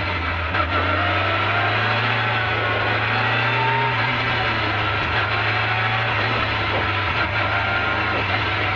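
Peugeot 205 rally car's engine heard from inside the cabin while driving hard, its pitch rising and falling with the revs over steady road noise and a low drone.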